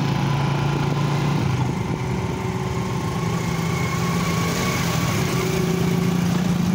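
Small motorcycle engine running while being ridden, with wind and road noise. The engine note rises about a second and a half in, then holds steady.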